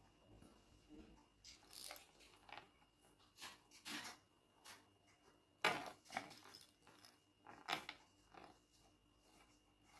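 Faint handling noises of a shower hose's plastic inner tube and brass end fitting being worked by hand: scattered soft clicks, taps and rustles, the sharpest a little past halfway and again near the end.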